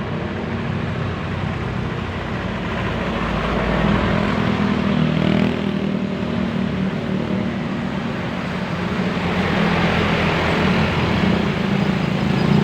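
Road traffic with a steady low engine drone. The noise swells twice, once a few seconds in and again near the end, as vehicles pass close by.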